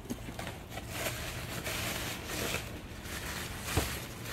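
Cloth wrapping rustling as a small object is unwrapped by hand, with a light knock near the end.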